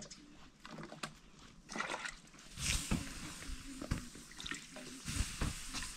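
Water splashing and trickling, with scattered knocks; the splashing grows louder about two and a half seconds in.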